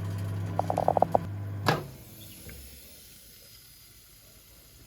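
Microwave oven running with a steady low hum, a quick run of short chirping pulses about a second in, then a click at which the hum cuts off, leaving only faint background.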